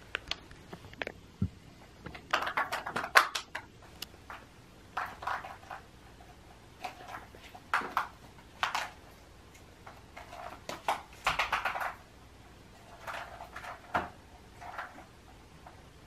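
Hollow plastic Easter egg batted by cats, clattering and skittering across a tile floor in irregular bursts of clicks and rattles.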